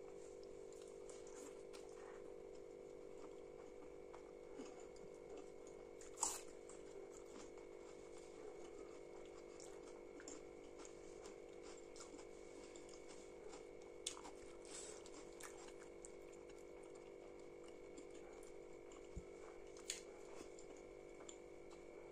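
Faint close-miked eating sounds: soft chewing and wet mouth noises from mouthfuls of bhatura with chickpea curry, with a few sharper clicks, the loudest about six seconds in, over a steady low hum.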